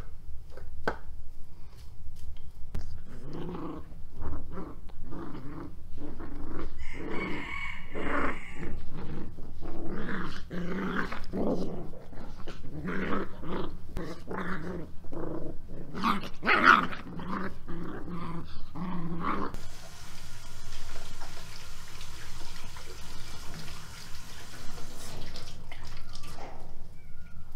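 Two puppies growling and yapping in quick short bursts as they play-fight. About twenty seconds in this stops and gives way to a steady background hiss.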